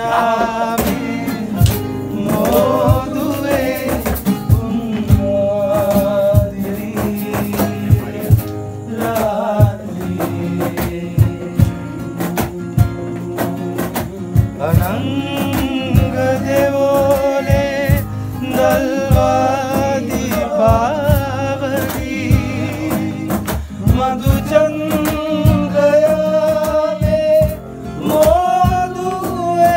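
Male voice singing a Sinhala song to a strummed acoustic guitar.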